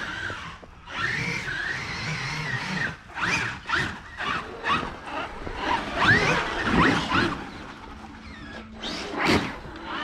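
Brushless electric motor and drivetrain of a Traxxas RC monster truck whining as it revs up and down in quick throttle bursts, with tyres churning through snow.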